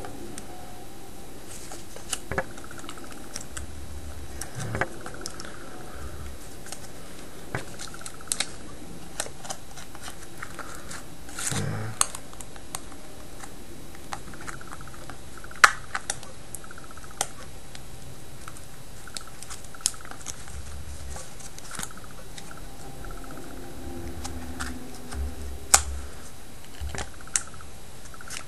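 Plastic pry card working around the edge of an HTC Inspire phone to lift the glued screen assembly: scattered sharp clicks and ticks at irregular intervals over a steady background hiss.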